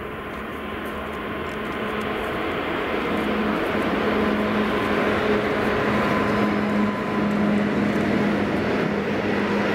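Freight train of gas tank wagons rolling past on the rails: a steady rumble of wheels on track that grows louder over the first few seconds and then holds, with a faint steady hum underneath.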